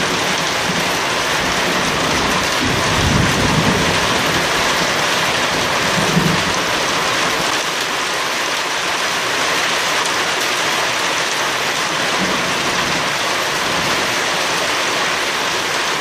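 Heavy rain falling steadily in an electrical storm, with low rolls of thunder about three seconds in, again near six seconds, and faintly near twelve seconds.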